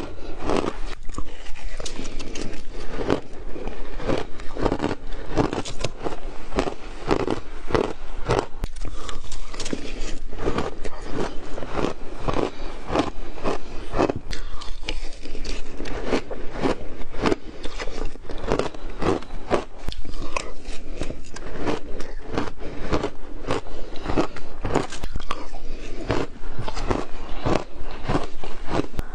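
Mouthfuls of shaved ice being bitten and chewed, a steady run of crisp crunches, several a second, without a break.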